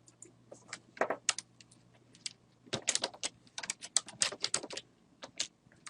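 Typing on a computer keyboard: scattered key presses, then a quick run of keystrokes a little under three seconds in, as a word is typed into a headline.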